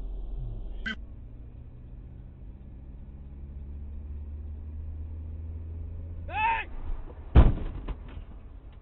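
Steady hum of a car engine heard from inside the cabin, then a short cry about six seconds in and, a second later, a loud bang of a vehicle collision followed by a few smaller knocks.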